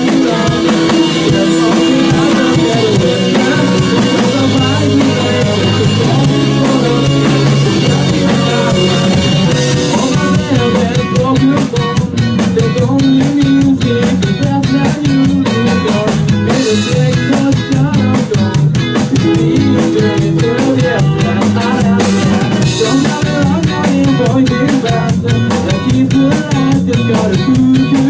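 Instrumental passage of rock music: a drum kit, electric guitar and bass play on without vocals, the drumming turning denser and more driving from about ten seconds in.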